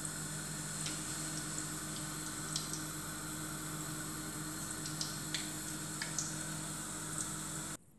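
Hot frying oil sizzling, with scattered small pops and crackles over a steady hiss and a low hum; it cuts off abruptly near the end.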